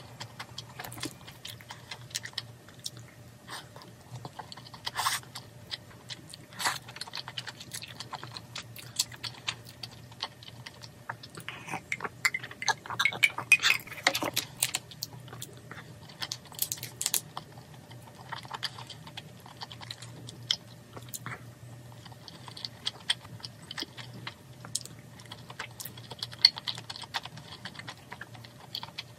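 Close-miked chewing of soft rice food, with scattered sharp clicks and taps of a spoon and chopsticks against a bowl and a plastic takeout tray. The taps come thickest about halfway through, over a faint steady hum.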